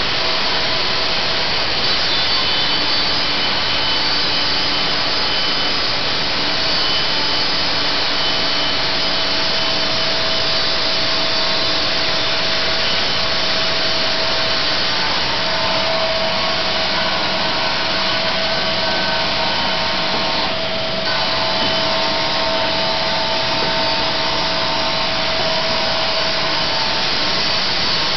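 Sawmill blade running steadily through a board, its motor and blade making a continuous loud whine and hiss. The sound dips briefly about two-thirds of the way through.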